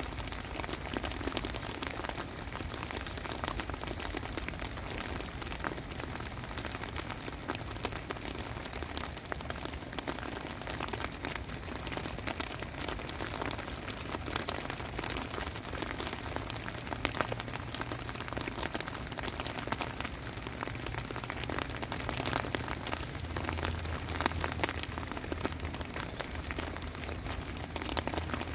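Steady rain falling, with a continuous patter of drop hits.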